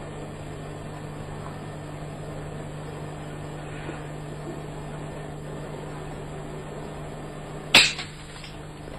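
Steady hiss of an old camcorder's sound track with a low hum, then near the end a single sharp snap.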